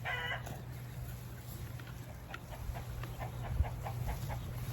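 Chicken clucking: a short pitched call right at the start, then soft, scattered clucks.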